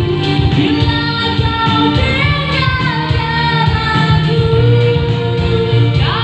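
A woman singing into a microphone over a PA, with long held notes. A Yamaha arranger keyboard plays the accompaniment to a steady programmed beat.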